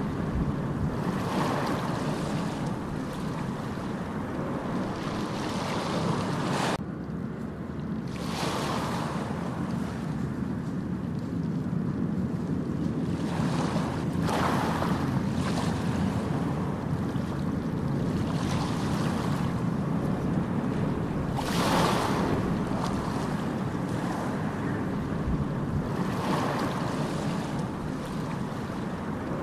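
Ocean waves washing onto a beach, a steady rush of surf that swells every several seconds, with wind rumbling on the microphone underneath.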